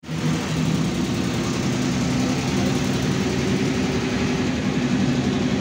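MAN A74 Lion's Classic city bus's diesel engine running steadily as the bus drives, heard inside the passenger cabin over road noise.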